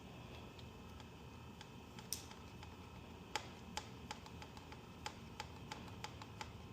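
Irregular series of light, sharp clicks or taps, about a dozen over a few seconds, over a faint steady hiss.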